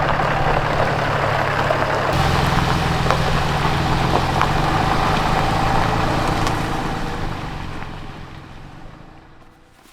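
A car's engine hum and road noise, steady, with the low hum growing a little about two seconds in, then fading out over the last few seconds.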